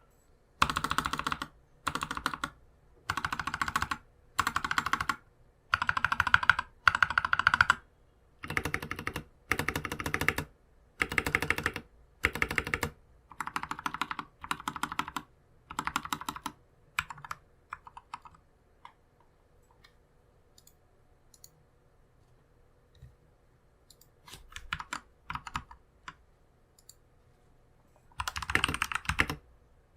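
Modded RK61 mechanical keyboard with lubed Durock T1 tactile switches, lubed and clipped stabilizers and foam dampening, typed on in quick bursts of keystrokes with short pauses between. Around the middle the strokes thin to single presses and there is a few seconds' pause. A last fast burst comes near the end.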